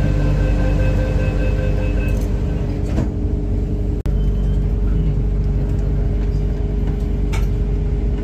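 Steady running noise inside a moving vehicle's cabin: a low rumble with steady humming and whining tones, broken by a brief dropout about four seconds in.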